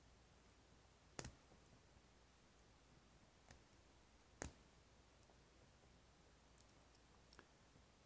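Near silence, with a few faint, short clicks of small parts on a Schlage BE365 deadbolt's key cylinder being worked by hand as the little plastic retainer piece is taken off. The loudest click comes about a second in and another about four seconds in.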